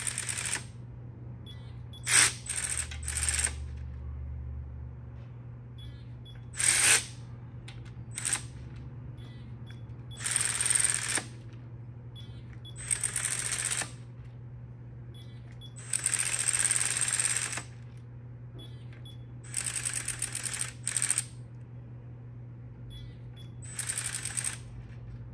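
Ratchet head of a digital torque wrench clicking in short runs, about a dozen spread over the span, as M6 bolts on a rear main seal housing are run down and tightened to 89 inch-pounds. A steady low hum runs underneath.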